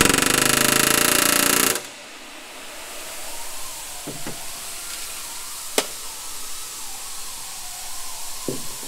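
Pneumatic rivet gun hammering a rivet into aircraft aluminium structure in a fast, even burst lasting nearly two seconds, the rivet bucked from the other side. Afterwards a few light clicks and knocks follow.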